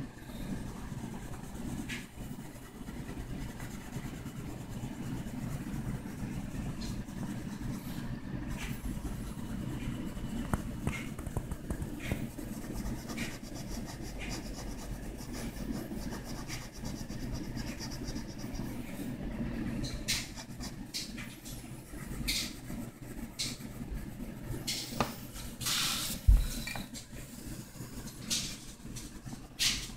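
Colored pencil rubbing and scratching across paper in shading strokes, over a steady low background hum. In the last third come several sharp taps, with one louder knock near the end.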